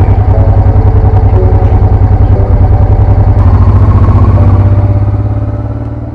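Honda Transalp motorcycle engine running close to the microphone as a loud, rapid pulsing, fading away over the last second or two.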